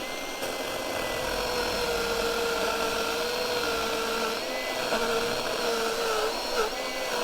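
Chainsaw running at high speed while cutting a log to length, a steady motor whine whose pitch sags briefly a few times.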